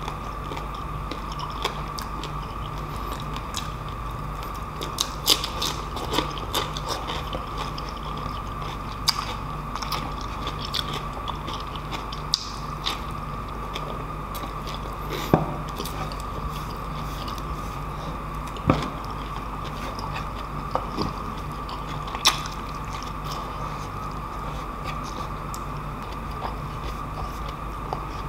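Chewing and crunching of crispy deep-fried pork knuckle skin, with scattered sharp cracks at irregular moments over a steady background hum.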